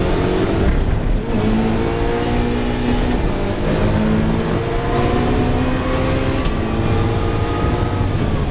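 Ferrari 488 Challenge race car's twin-turbo V8 accelerating hard through the gears. The pitch climbs, then drops at each of several quick upshifts, and falls away near the end as the driver lifts off.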